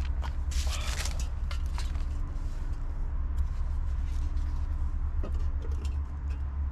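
Metal clinks and scrapes as a steel pot lid is handled and set on a small cooking pot, the sharpest clatter about a second in and a lighter click near the end, over a steady low rumble.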